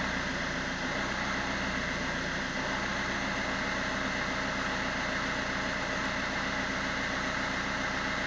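Fiat Punto 1.3 Multijet four-cylinder turbodiesel idling steadily with a hiss over the engine note. This is the rough idle that set in after an EGR valve replacement.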